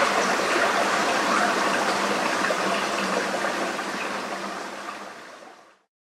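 Steady rush of a trickling stream in a night field recording, fading out about five seconds in.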